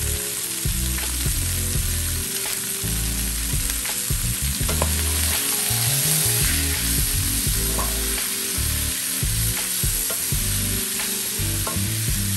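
Sliced onions and bell peppers sizzling in a hot skillet as they are stirred with a wooden spatula, with small scrapes and ticks of the spatula against the pan.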